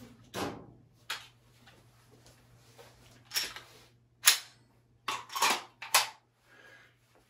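Sharp clicks and snaps of a pistol going into and out of a G-Code belt holster and gear being worked on a battle belt, as the holster's retention lockup is checked. The sharpest single click comes a little over four seconds in, with a quick cluster of snaps around five to six seconds.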